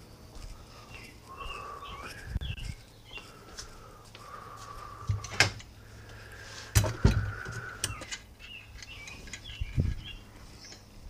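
Birds chirping, with short rising and falling chirps and a few held whistled notes. Several knocks and thumps are scattered through it, the loudest pair about seven seconds in.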